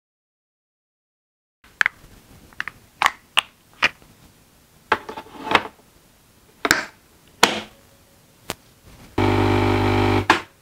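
Capsule coffee machine: a series of sharp clicks and knocks as it is handled and loaded, then its pump buzzing steadily for about a second as it dispenses.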